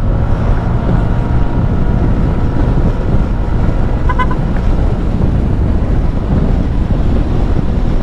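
Wind buffeting and road rumble on a lavalier mic inside a closed-visor motorcycle helmet, over a Yamaha NMAX scooter's engine running at about 60 to 70 km/h. A short run of quick high beeps about four seconds in.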